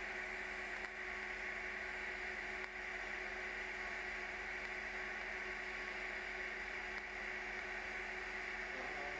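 Steady hiss, strongest in the upper middle, over a low steady electrical hum, with no change throughout.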